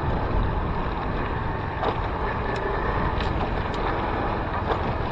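Small motorcycle on the move: steady wind rush and engine noise picked up by a helmet-mounted action camera, with a few faint clicks.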